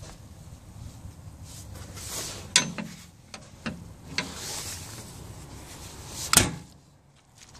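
A few light knocks and rattles from the excavator's side access door, then one loud bang about six seconds in as the door is shut.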